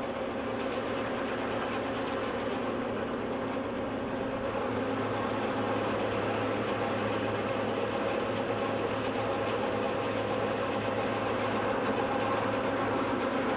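LeBlond hollow spindle engine lathe, a 30-horsepower machine, running steadily: an even mechanical hum with a strong low tone and no change in speed.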